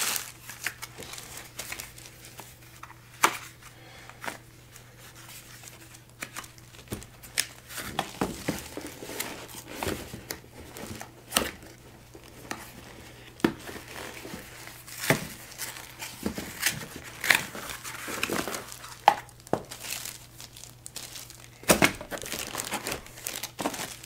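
Plastic packaging sleeve crinkling and rustling in irregular bursts with scattered sharp crackles, as a stick vacuum's extension tube wrapped in it is handled and lifted out of a cardboard box.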